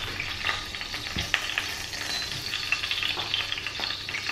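Hot oil sizzling and crackling in a frying pan as raw beef meatballs are put into it, with scattered sharp spits.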